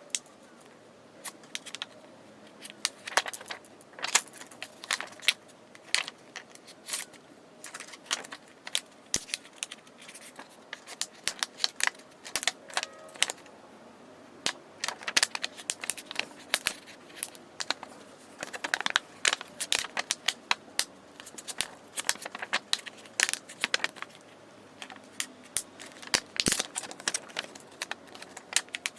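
Irregular sharp clicks, scrapes and crackles of a tool being forced against a Samsung Galaxy A03's glued-in battery to pry it out.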